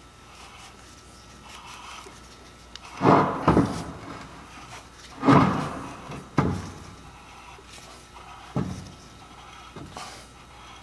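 Ring and pinion gears of a Salisbury differential being turned by hand under load to roll a tooth-contact pattern, giving half a dozen uneven creaks and scrapes a second or two apart.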